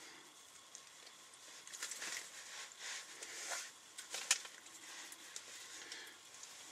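Irregular rustling and light handling noises, with one sharp click a little past four seconds in.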